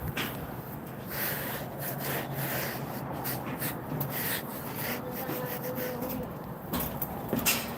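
A stiff brush scrubbing over new stonework and mortar joints in quick, uneven rubbing strokes.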